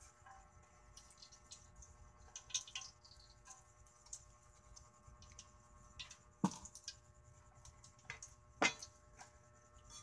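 Faint, scattered crackles and ticks from cooking oil heating in a large steel wok over a wood fire, with two sharper pops about six and a half and eight and a half seconds in.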